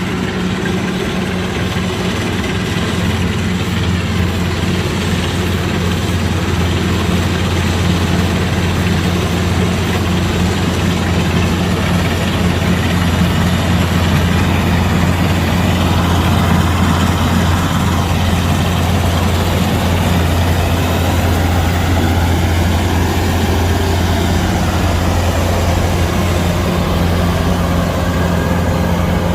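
Kubota DC-105X combine harvester's diesel engine running steadily, a continuous low drone with machinery noise over it.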